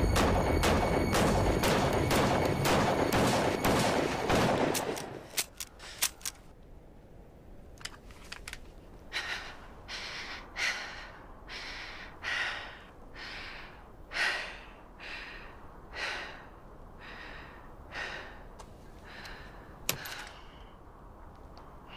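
A rapid burst of pistol shots for about four and a half seconds, then a few single sharp cracks. After a pause comes heavy, ragged breathing, one gasping breath about every second.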